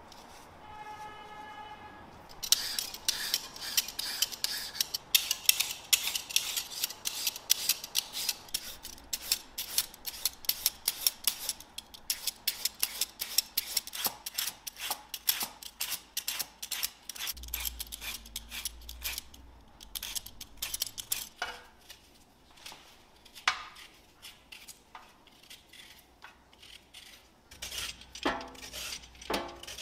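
Hand-held julienne peeler and vegetable peeler blades scraping through raw carrot and bell pepper in fast, steady strokes, several a second, thinning to sparser strokes about two-thirds of the way through. A short ding sounds about a second in.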